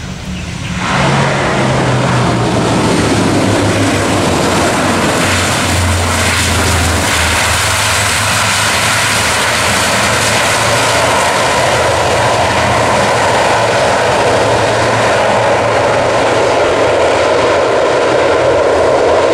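Airbus C295's twin PW127G turboprop engines and propellers running loud on the landing roll. The sound comes in sharply about a second in, then holds steady with a low propeller hum.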